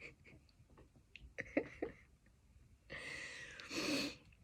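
A woman's breathing during a sneezing fit: a few faint mouth clicks, then about three seconds in a long noisy breath in that ends in a louder, voiced breath out.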